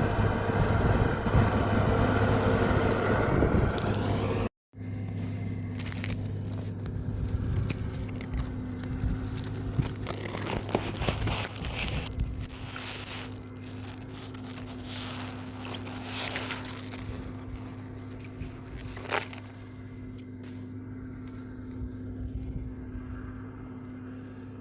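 Combine harvester engine running steadily, with crackling and scraping noises over it. It cuts out abruptly about four and a half seconds in and comes back quieter.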